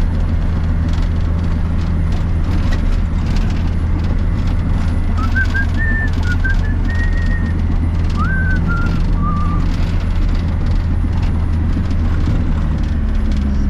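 Cat D7 Next Gen bulldozer's diesel engine running steadily as it pushes snow, heard from inside the cab as a deep, even drone. About halfway through comes a short run of high whistled notes.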